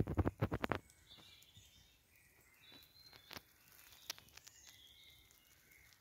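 A quick clatter of knocks and rustles in the first second, then faint, scattered songbird calls.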